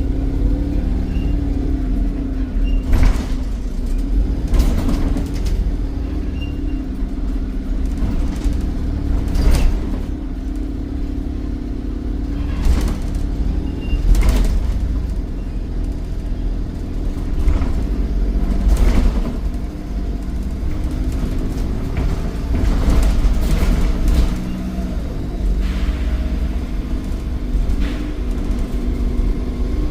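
Volvo B7RLE bus's 7.1-litre D7E diesel engine running steadily with a deep rumble, while sharp knocks and rattles come and go every second or two.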